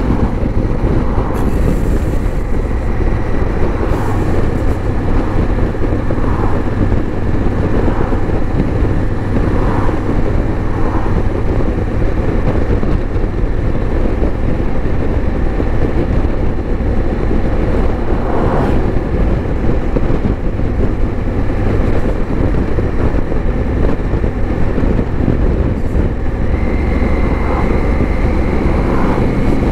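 Motorcycle cruising at a steady road speed: a constant engine drone under heavy rushing noise from the wind, with no change in speed.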